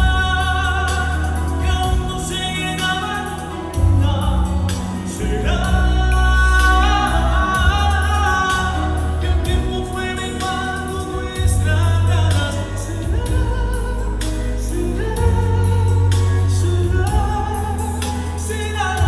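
Live singing over a backing track with a heavy bass line, played through an LD Systems DAVE 12 G4X column PA with a 12-inch subwoofer.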